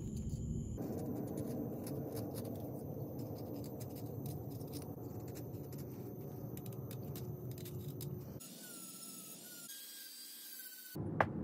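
Small knife whittling a pine lure blank, rounding its sides in a run of short scraping cuts. Near the end comes a faint steady whine from a rotary tool with a sanding drum, then one sharp click.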